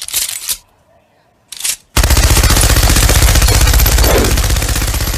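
Two short whooshes, then from about two seconds in a loud, fast, even rattle of strikes, a rolling sound effect.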